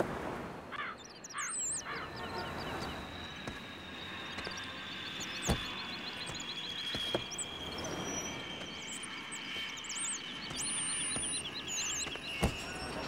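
Outdoor ambience with birds chirping and trilling over a steady background hiss, broken by a few sharp thumps of a Skoda hatchback's doors shutting, the loudest near the end.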